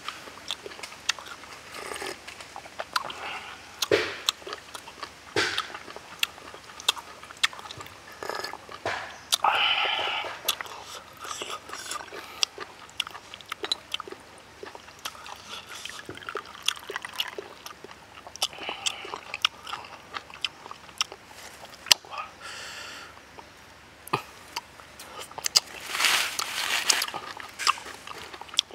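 Close-up eating sounds: wet chewing and biting on grilled octopus, with many short crunches and clicks, and now and then a longer sip from a ceramic teacup.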